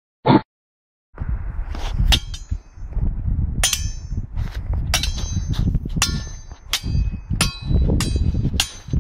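Two thin metal swords clashing in a sword fight: repeated sharp metallic clangs that ring briefly, about one or two a second, over a low rumble. A brief loud sound comes right at the start, followed by about a second of silence.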